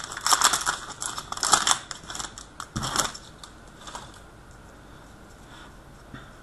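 Trading cards and their packaging being handled: quick rustles and clicks in the first three seconds or so, then only faint handling.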